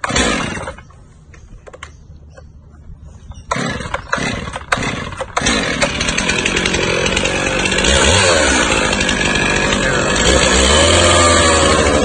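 Stihl two-stroke chainsaw being pull-started: a few yanks on the starter cord before the engine catches about five seconds in. It then runs steadily and revs up near the middle and again near the end.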